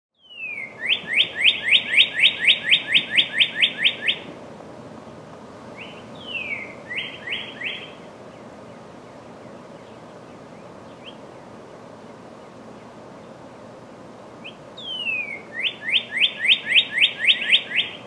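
Male northern cardinal singing its spring song to attract a mate. There are three phrases, each a falling whistle followed by a quick run of rising whistled notes, about four a second. The middle phrase is shorter and quieter.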